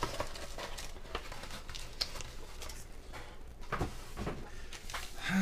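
Cardboard box being handled and set down on a bench: light rustling and scattered small clicks, with a couple of soft knocks about four seconds in.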